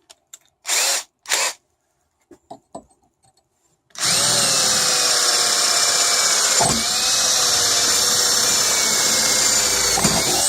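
Cordless drill boring a pilot hole in aluminum pipe: two short bursts about a second in, then from about four seconds a steady run with a whine that dips briefly twice as the bit bites, stopping near the end.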